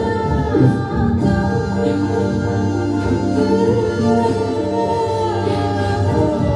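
Live ambient music: layered, held tones sounding steadily over lower notes that shift slowly.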